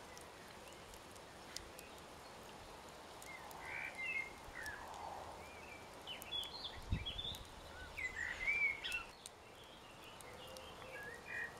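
Songbirds chirping and singing in short, varied phrases over a faint steady outdoor hiss, with one dull low thump about seven seconds in.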